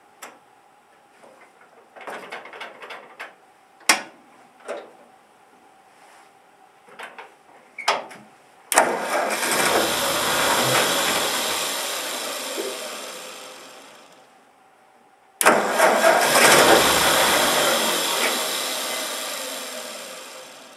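1948 Ford 8N's four-cylinder flathead engine being started cold with a little choke: after scattered clicks and knocks at the controls, two start attempts about six seconds apart, each beginning suddenly and dying away over about five seconds.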